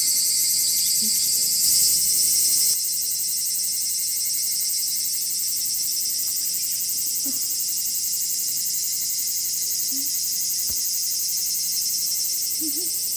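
A chorus of cicadas buzzing steadily at a high pitch. It is a little louder for the first few seconds, then drops slightly about three seconds in.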